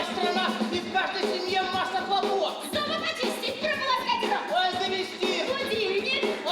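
Musical number from a stage musical: voices singing over backing music.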